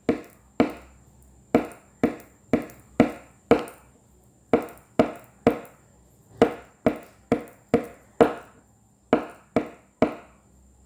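A pencil tapping firmly on a hard tabletop in a fixed rhythm: sharp knocks about half a second apart, falling into short groups with slightly longer pauses between them. This is the repeating tapping pattern of the stuk-ritm exercise, used to suppress articulation while reading.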